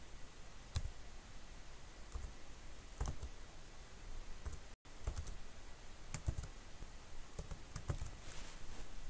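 Computer keyboard keystrokes: a few sparse, scattered key clicks with pauses between them, coming closer together in the last few seconds.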